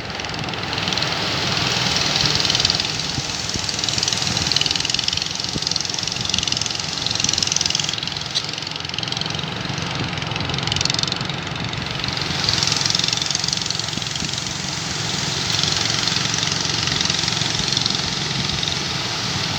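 A fishing boat's engine running steadily under a loud rushing of wind and water that swells and fades every few seconds as the boat turns back through big waves at a river mouth.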